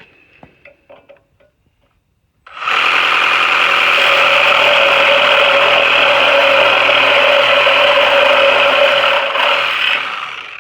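Electric grinder running on steel plate with a steady high whine, starting abruptly about two and a half seconds in and winding down near the end.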